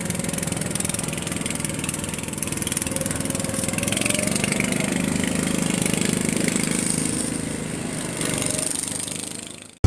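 Small boat's outboard motor running steadily at a moderate, even pace, fading away just before the end.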